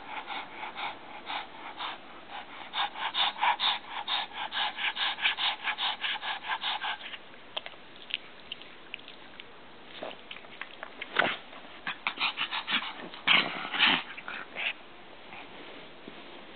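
A pug making wet munching, mouth-smacking sounds, a quick regular run of about four a second for the first several seconds, then slower scattered smacks with a few louder ones near the end.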